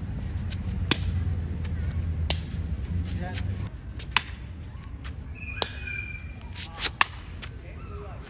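Sharp, irregular taps of a Khmer shuttlecock (sey) being kicked back and forth, a second or two apart, with two in quick succession near the end. A low steady hum runs under the first half and stops about halfway through.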